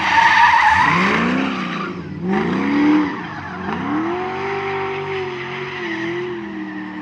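600 bhp Nissan drift car sliding: its engine revs rise and fall in several sweeps as the throttle is worked, with a long held rev in the second half, over tyres squealing, loudest in the first second.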